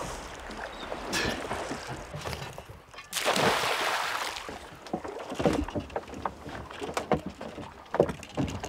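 Small boat on open water with a steady wind-and-water wash while a four-pronged grapnel anchor is handled. About three seconds in comes a loud splash lasting just over a second as the anchor goes over the side, then scattered knocks and clunks on the wooden boat.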